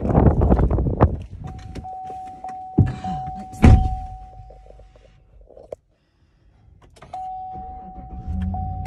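A GMC Yukon being boarded. Wind buffets the microphone at first, then the door-open chime beeps steadily and the driver's door is pulled shut with a solid thunk about three and a half seconds in. Near the end the chime sounds again and the engine starts with a low, steady hum.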